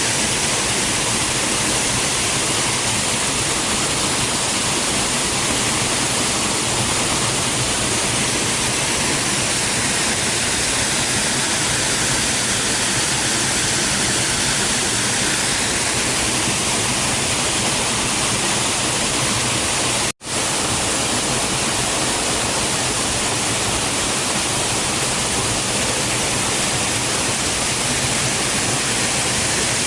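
Waterfall plunging into its pool: a steady, loud rush of falling water, broken by a split-second gap about twenty seconds in.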